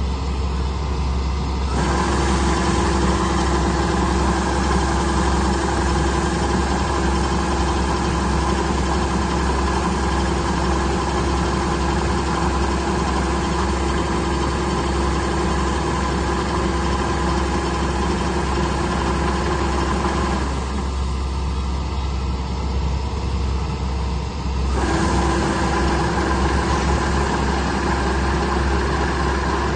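Engine of rice-harvesting machinery running steadily at a constant pitch. Its fuller note drops away for a few seconds about two-thirds of the way in and then comes back.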